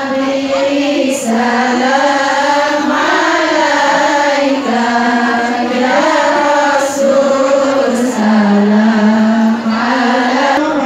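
A crowd of women singing sholawat, devotional praise of the Prophet, together in unison: a slow melody of long held notes, with a longer, lower note held near the end.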